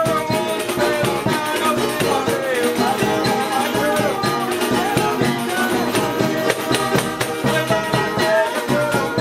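Live acoustic folk music: a rabeca (folk fiddle) bowed over small guitars strummed in a quick, even rhythm.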